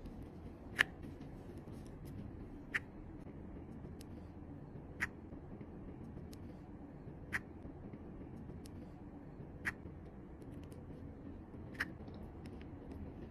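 Diamond-painting pen with a wide multi-placer tip pressing rows of drills onto the canvas: a light click about every two seconds, over a low steady background hum.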